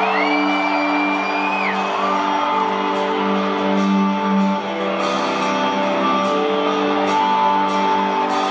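Live rock band in an arena, electric guitars ringing out sustained notes over the crowd's cheering. Near the start a long, high whistle rises from the audience and holds for about two seconds.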